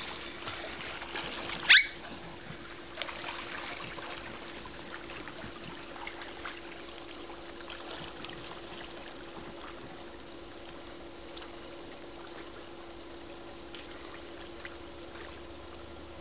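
Pool water trickling and lapping, with a faint steady hum. A Jack Russell terrier gives one sharp, loud yip about two seconds in.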